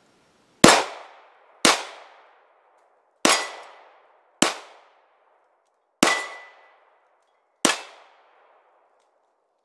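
Six 9mm pistol shots from a SCCY CPX-2 hammer-fired pistol, fired one at a time about a second or a second and a half apart, each echoing briefly off the surrounding woods. A thin ringing tone hangs after some of the shots.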